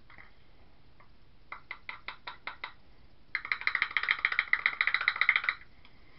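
A small jar of copper colourant tapped a handful of times, then shaken hard for about two seconds in quick clicking rattles, to get the stubborn powder out over the pot.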